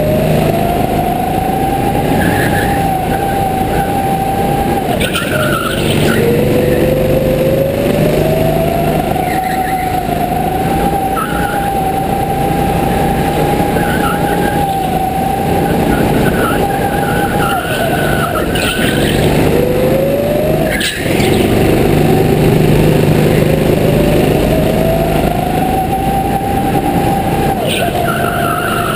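Go-kart engine heard on board, its pitch climbing with speed, holding steady at top speed, then dropping as the kart slows for a corner, several times over. Brief tyre squeals come through the turns, and there is one sharp knock about two-thirds of the way through.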